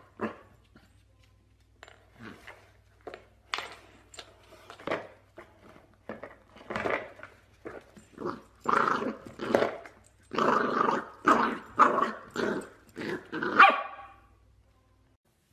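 Small dog barking in short, repeated yaps, sparse at first, then coming faster and louder from about halfway through, and stopping shortly before the end.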